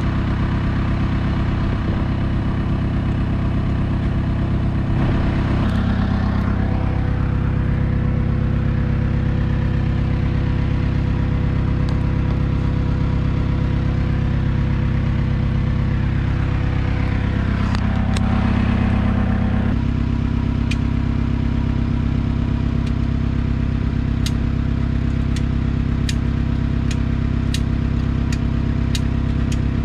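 An engine running steadily at idle, its note shifting briefly twice. Near the end there is a run of light, sharp ticks, about two a second.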